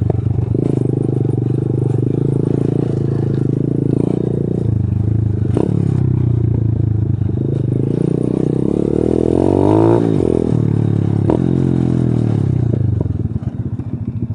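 125 cc pit bike's single-cylinder four-stroke engine running under the rider on a rough dirt trail, its note shifting with the throttle, with a rev up and back down about ten seconds in and two sharp knocks from the bike over the ground. The engine drops lower and quieter near the end as the bike slows.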